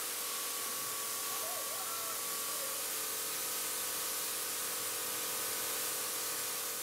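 Kärcher electric pressure washer spraying a jet of plain water onto greenhouse glass panes: a steady hiss that eases off slightly near the end.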